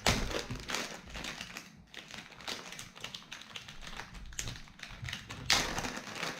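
Plastic cable packaging being handled: a run of light clicks and taps, with sharper, louder crackles right at the start and about five and a half seconds in.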